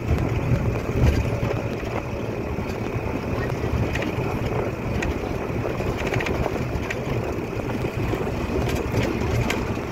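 Wind buffeting the microphone outdoors: a steady, uneven low rumble, with a few faint ticks from the camera being handled.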